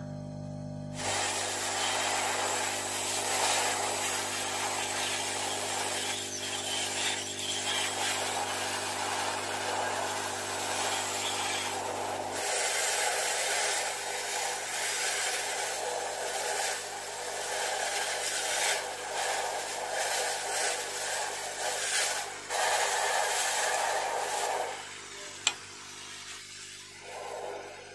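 Electric heat gun running, blowing hot air. Its low hum drops off about twelve seconds in, the blowing stops near the end, and a single sharp click follows.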